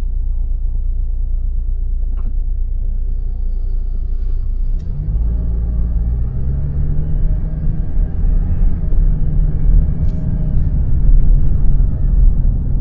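Vehicle driving along a road: steady low engine and road rumble, with the engine pulling harder from about five seconds in as its hum rises and then holds, as when accelerating. A few faint clicks are heard along the way.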